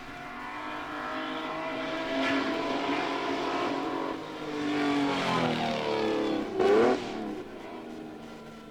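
Mercedes-Benz Grand Prix racing car engine at speed, its note swelling, shifting in pitch as it goes by, loudest briefly about seven seconds in, then fading away.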